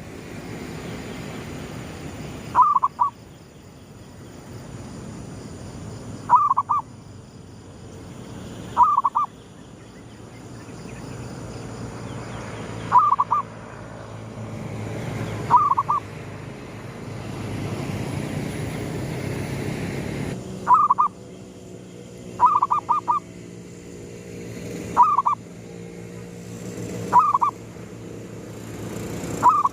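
Zebra dove (perkutut) cooing: short bursts of two or three quick coos, repeated about ten times at intervals of two to four seconds. A steady low background rumble runs underneath.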